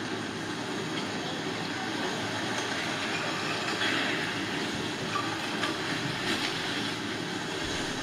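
Mudslide of dark mud and rock flowing past in a continuous, noisy rush, a little louder about halfway through.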